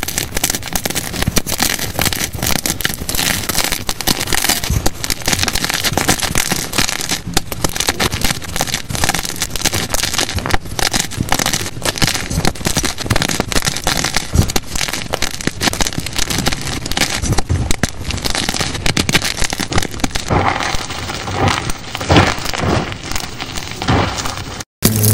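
White gym chalk blocks being crushed and crumbled by hand into loose chalk, a dense, rapid run of crunching and crackling, sped up to double speed. In the last few seconds the hands squeeze loose powder and the crunches turn softer.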